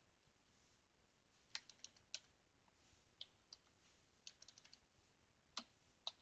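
Faint, scattered keystrokes and clicks on a computer keyboard, with a quick run of about five keys a little past the middle.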